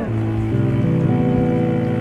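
Electronic music: a falling pitch sweep ends right at the start, then held chords play over a low bass that steps up in pitch twice.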